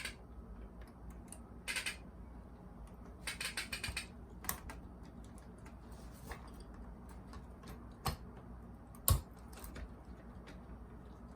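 Scattered light clicks and taps of small plastic and metal parts being handled while a cassette deck is taken apart, with a quick run of clicks about three and a half seconds in. A dull knock near the end is the loudest sound.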